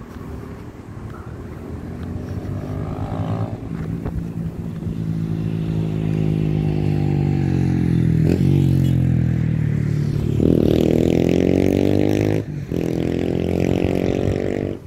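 A motor vehicle's engine grows louder as it comes near, then accelerates with a rising pitch. It drops briefly at a gear change about twelve seconds in and rises again, before cutting off suddenly.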